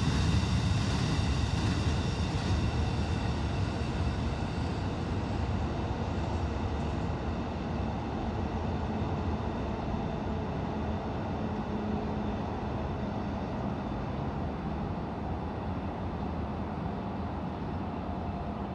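Freight train moving through the rail yard: a low rumble of wheels on track with a high-pitched squeal over it, both fading steadily as the train draws away.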